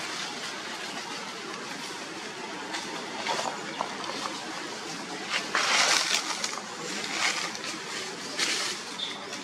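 Leaves and branches rustling in several short bursts, the longest a little past the middle, over a steady outdoor hiss.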